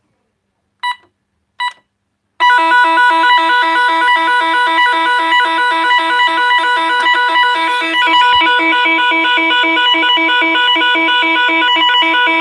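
Intruder alarm control panel, just powered from its 12 V battery: two short electronic beeps, then it sounds a loud, continuous electronic alarm tone with a rapid warble.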